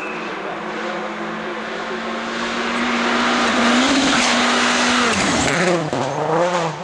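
Mitsubishi Lancer WRC rally car with its 2.0-litre turbocharged four-cylinder engine at speed on gravel. The engine holds a steady high note and grows louder as the car approaches. The pitch drops as it passes about five seconds in, then the revs rise and fall as it slides away.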